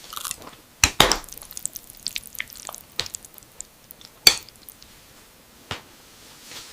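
Kitchen and table sounds: a handful of sharp clinks and knocks of utensils against dishes, spaced a second or more apart, with soft crackling and small ticks between them.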